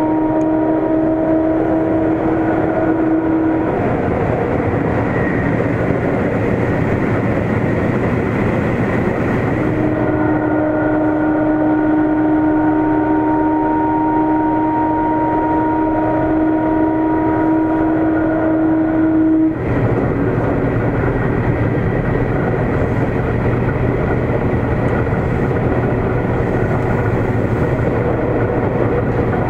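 Sendai Subway Namboku Line 1000 series car running, heard from inside: a steady rumble of wheels on rail, with a constant-pitch whine from its Mitsubishi IGBT-VVVF traction equipment. The whine drops out a few seconds in, returns about ten seconds in, and cuts off abruptly near twenty seconds.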